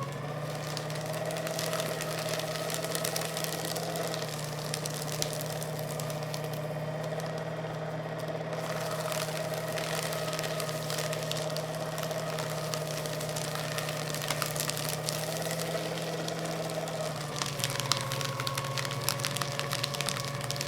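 Electric paper shredder running steadily, its motor humming while the cutters crunch and crackle through paper. Near the end the motor's note drops a little and the crackling grows louder and sharper.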